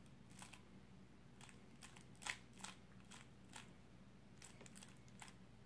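Faint clicking of a Qiyi Valk 3 speedcube's layers being turned slowly by hand through a U-permutation algorithm: a dozen or so soft, irregular clicks, the loudest a little past two seconds in.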